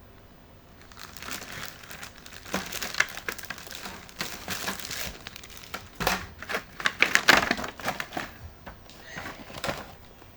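Packaging being unwrapped during an unboxing: wrapping crinkling and rustling in irregular bursts of sharp crackles. It starts about a second in and is loudest between about six and eight seconds in.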